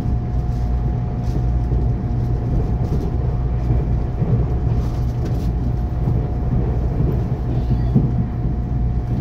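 Running noise heard inside the passenger car of a moving electric multiple-unit train: a steady low rumble with a faint whine held at one pitch throughout.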